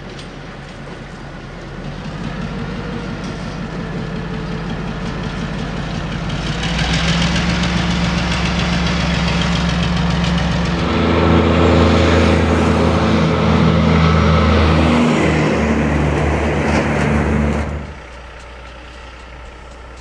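A diesel locomotive's engine runs and grows louder as it hauls loaded lumber cars over a grade crossing. About halfway through, a louder, steady, deep engine sound takes over, and it cuts off abruptly a couple of seconds before the end.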